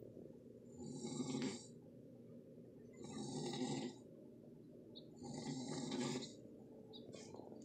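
A man snoring in his sleep: three long snores about two seconds apart, each a low rasp with a breathy hiss. Another snore begins right at the end.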